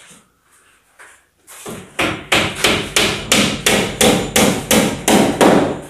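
A hammer striking repeatedly at an even pace of about three blows a second, starting about two seconds in after a few lighter knocks, during floor tile installation.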